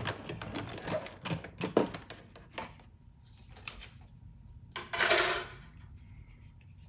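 A cut and emboss machine rolling a stack of cutting plates with a die through: a run of mechanical clicks and knocks for about two seconds, then a short scraping rush about five seconds in, the loudest sound, as the plates come through.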